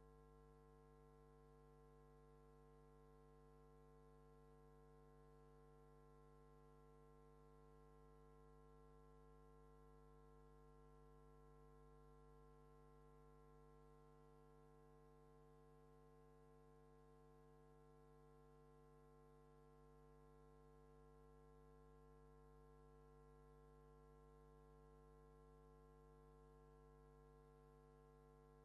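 Near silence: only a faint, steady hum made of several unchanging tones.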